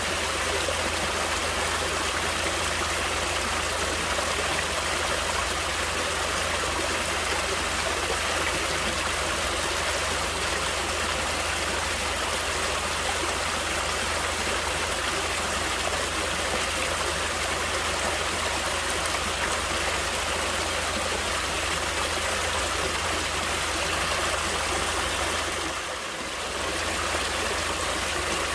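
Stream water flowing steadily, with a short dip in level near the end.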